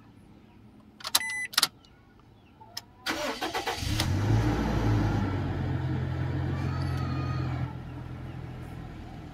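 A short electronic beep about a second in. At about three seconds the Toyota Innova's engine is cranked by the starter, catches within a second and settles into a steady idle.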